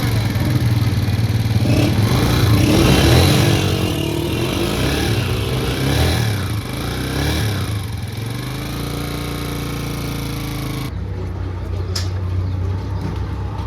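Honda motorcycle engine revved in several quick blips, then settling to a steady idle. About eleven seconds in the sound changes abruptly, and a sharp click follows a second later.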